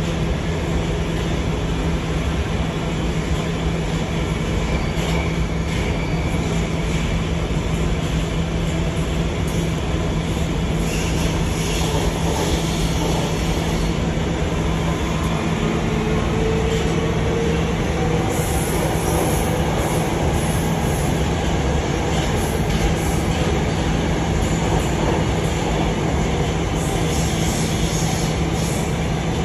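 Budapest M4 metro train (Alstom Metropolis) heard from inside the car while running through the tunnel: a steady loud rumble with a constant low hum. A faint whine rises in pitch about halfway through, and a high hissing noise swells twice, once a little after the middle and again near the end.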